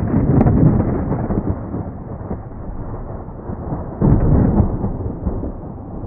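Deep, muffled rumbling like thunder, swelling at the start and again about four seconds in, then fading.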